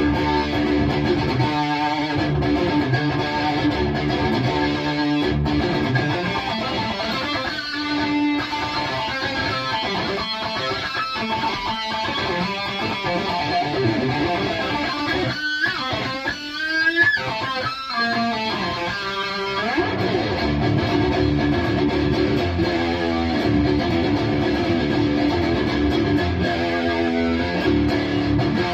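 High-gain distorted electric guitar through a Bogner Uberschall preamp, played dry without effects: lead lines with several bent notes a little past halfway, then a steady low rhythmic riff for the rest.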